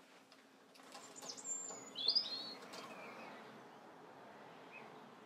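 A bird chirping faintly: a few short, high, sliding calls about one and a half to two and a half seconds in, over quiet room noise.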